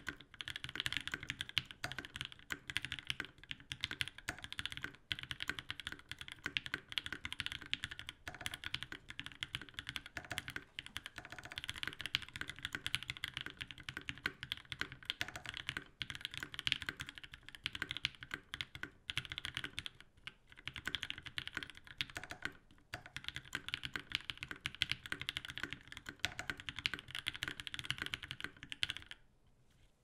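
Continuous fast typing on a CannonKeys Savage65 custom mechanical keyboard with lubed and filmed JWK Lilac linear switches, an FR4 plate and PBT keycaps: rapid keystrokes with a few short pauses. The typing stops about a second before the end.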